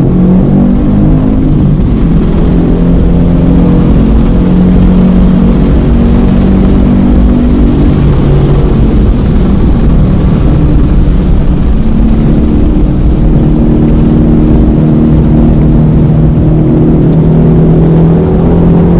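Ford Mustang's engine heard from inside the cabin, running hard under track driving with wind and tyre noise: it pulls as the car gathers speed, then its note changes as the car slows for the next corner.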